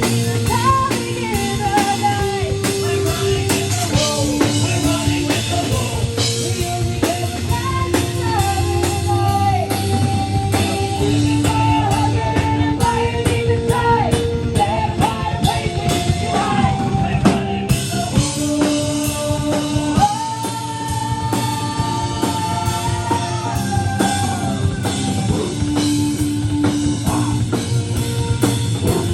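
Live rock band playing with drum kit and guitars, a held, sliding lead melody over steady chords and drumming.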